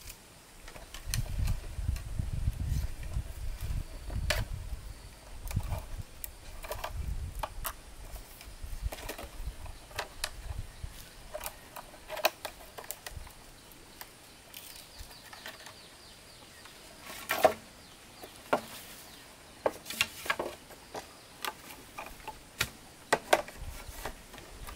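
Irregular knocks, taps and scuffs of hand work around a concrete post being set upright and braced with bamboo poles. The loudest knocks come in the second half, and a low rumble runs through the first several seconds.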